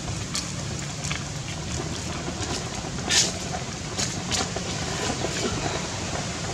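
Steady low rumble and hiss of outdoor background noise, with a few short crackles or rustles, the loudest about three seconds in.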